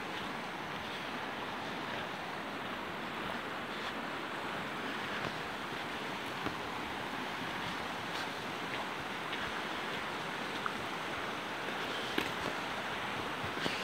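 Steady rush of a shallow river flowing over rocks, with a few faint clicks.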